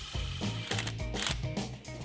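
Cordless power tool running a bolt down into a timing-cover block-off plate, in short whirring, clicking runs, under background music with a steady beat.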